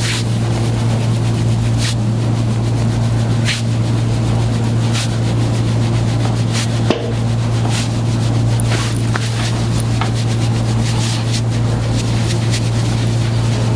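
A loud, steady motor hum with a low drone, with faint clicks scattered through it.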